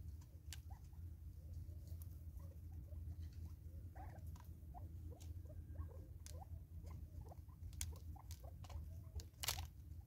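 Natal spurfowl pecking and feeding at a plastic-bottle feeder: scattered sharp taps and clicks with soft short chirps in between, and one louder rustling tap near the end.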